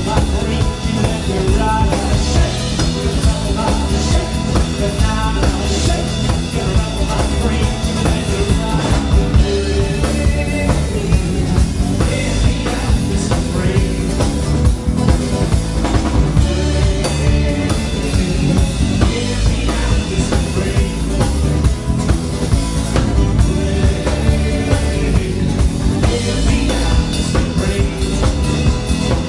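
A live rock band playing: drum kit with a steady beat, electric bass guitar and acoustic guitar.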